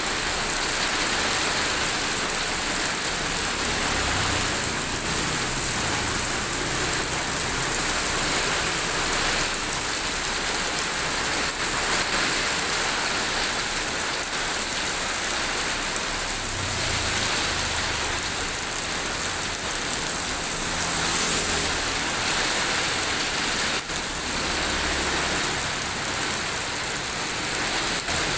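Steady rain pouring down in a windy storm, with low rumbles coming and going several times under the hiss.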